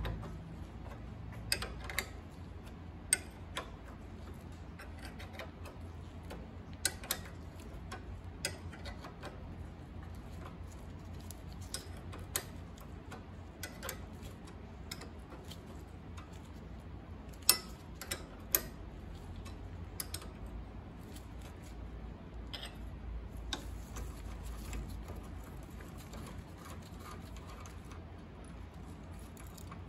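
Scattered metallic clicks and clinks of a ratchet and wrench working the stripped clamp bolt on the tie rod adjusting sleeve of a 1995 Chevy Caprice, the loudest a couple of sharp clicks a little past halfway, over a low steady hum.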